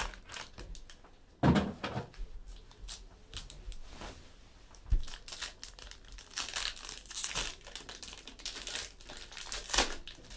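Plastic wrapping crinkling and tearing as sealed packaging of trading cards is opened by hand, with a few sharp knocks of the box and cards being handled.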